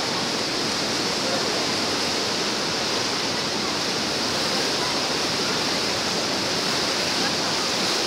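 Waterfall and the whitewater below it rushing in a steady, even noise that does not change.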